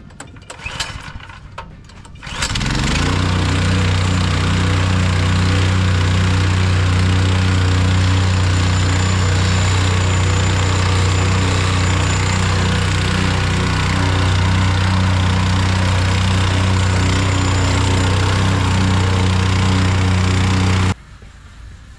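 Gas-engine vibratory plate compactor pull-started, catching about two seconds in after a few rattling tugs, then running steadily at full speed while its plate tamps a sand base. It cuts off suddenly near the end.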